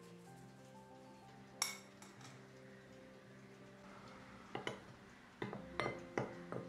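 Metal spoon clinking against a glass mixing bowl while stirring dry sifted flour: one sharp clink about a second and a half in, then a quick run of clinks in the last two seconds, over soft background music.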